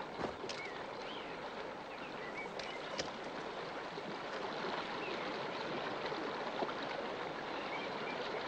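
Steady rushing of a stream, with a few faint short chirps and light clicks over it.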